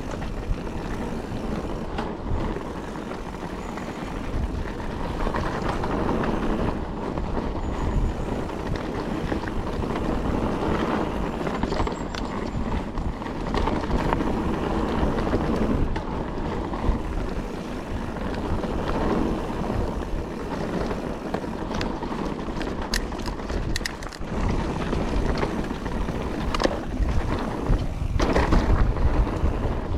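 Calibre Triple B mountain bike ridden over a dry, loose trail: tyres rolling over dirt and stones, with frequent rattles and knocks from the bike. Steady wind noise sits on the microphone.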